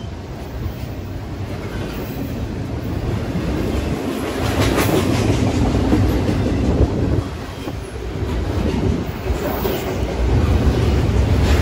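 Double-stack intermodal freight train cars rolling past: a steady low rumble of steel wheels on the rails, with runs of clickety-clack over the rail joints about halfway through and again near the end.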